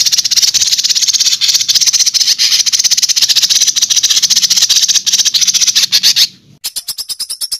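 Harsh, rapid rattling trill from a songbird tutor recording. It breaks off after about six seconds, and after a short pause a different, evenly pulsed buzzing trill starts.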